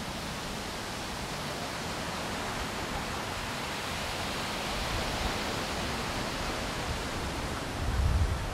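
Surf washing onto a sand beach: a steady hiss that swells about halfway through. Wind starts buffeting the microphone near the end.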